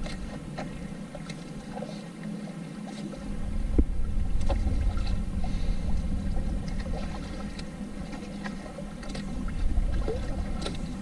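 Water lapping and splashing against the hull of a small outrigger fishing boat, with scattered light ticks and a steady low rumble underneath that grows a little after about three seconds.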